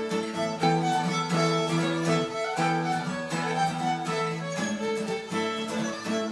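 Fiddle playing a folk tune over a strummed acoustic guitar accompaniment.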